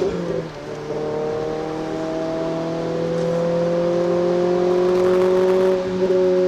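Renault Clio RS 200's engine heard from inside the car while under way: a short break about half a second in that comes back at lower revs, as at an upshift, then an engine note that climbs slowly under acceleration, with another brief break near the end.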